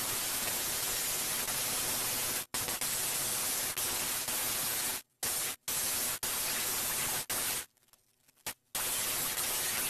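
Black & Decker handheld power belt file sanding the wooden slingshot fork: a steady, even hiss that cuts off abruptly a few times, with short silences between.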